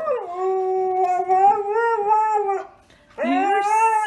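Husky howling: one long howl that drops in pitch at the start and ends about two and a half seconds in, then a second howl beginning about three seconds in.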